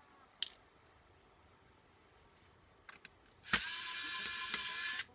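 Small electric screwdriver running in one steady high-pitched burst of about a second and a half, cutting off abruptly, after a sharp click and a few light ticks of parts being handled.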